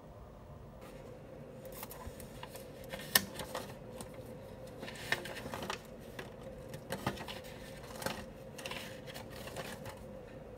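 Pen writing on paper and a paper notepad being handled, with scratching and rustling and a few sharp clicks and taps, the loudest about three seconds in, over a faint steady hum.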